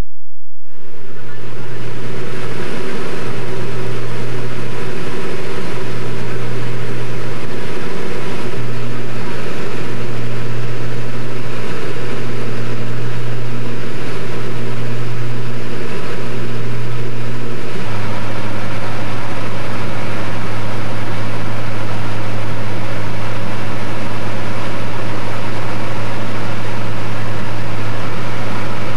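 Steady, loud drone of a light aircraft's engine and propeller heard from inside the cabin, starting abruptly about a second in. A little over halfway through, the drone steps down to a lower pitch and holds steady there.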